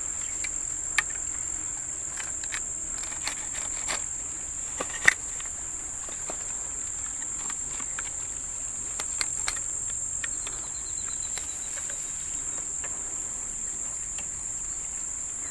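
Steady high-pitched chorus of insects, crickets by its sound, with scattered sharp clicks and knocks, the loudest about five seconds in.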